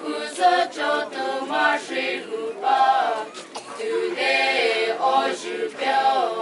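A mixed group of men and women singing a traditional folk chant together, unaccompanied, in short phrases with brief breaks between them.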